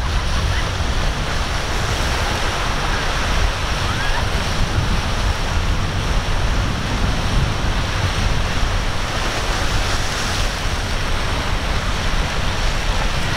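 Surf and choppy inlet water rushing steadily, with wind buffeting the microphone.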